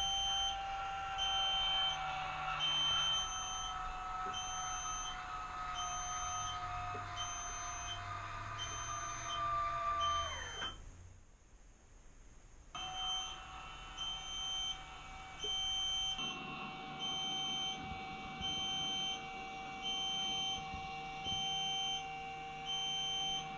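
A small electric motor whining steadily, its pitch slowly sinking before it winds down and stops about ten seconds in, then running steady again. Plausibly this is an E-Stopp electronic parking brake actuator working the brake cable. Over it a short electronic beep repeats about once every 1.3 seconds.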